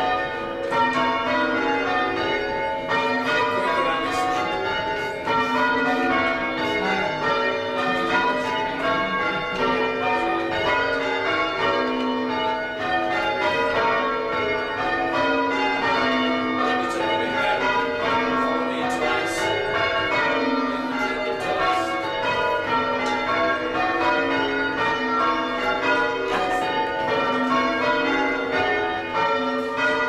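Church bells being change rung, heard from the ringing chamber as the ringers pull the ropes. The strikes overlap in a continuous, steady stream of ringing bells.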